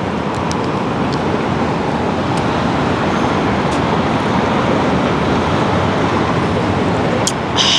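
Steady city street traffic noise, with a few faint clicks and a short hiss near the end.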